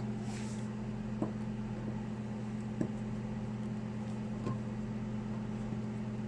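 Steady low electrical hum with a few faint, short clicks spread through it.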